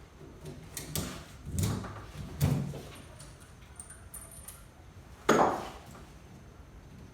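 Tie-down straps being unfastened from an engine: three dull knocks and clunks in the first two and a half seconds, then a single sharp, loud bang a little after five seconds.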